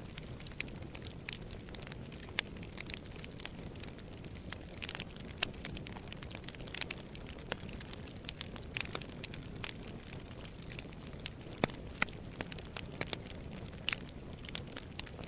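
Wood fire crackling in a fireplace: irregular sharp pops and snaps over a steady low rustle of burning.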